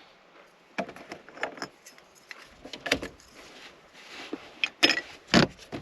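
Irregular clicks, clinks and knocks from hand tools and dashboard parts being handled, about half a dozen sharp ones, the loudest two near the end.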